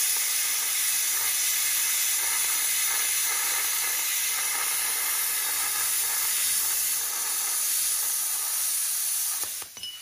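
Plasma cutter cutting through steel: a steady loud hiss that stops abruptly near the end as the cut finishes.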